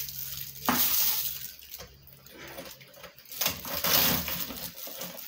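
Clear plastic wrapping on a brush cutter handle crinkling and rustling in several bursts as the handle is handled and set into its clamp on the shaft.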